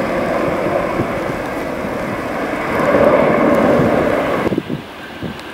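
Twin-jet airliner's engines at takeoff power as it lifts off a wet runway: a steady, loud roar that swells about three seconds in, then cuts off abruptly near the end.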